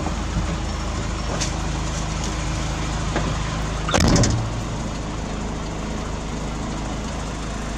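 Heavy diesel engine running steadily at low revs, with one short, loud bang about four seconds in.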